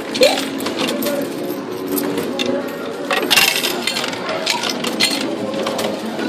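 Pennies clinking and dropping in a 2p coin pusher machine: a string of short metallic clicks, thickest about three and a half seconds in.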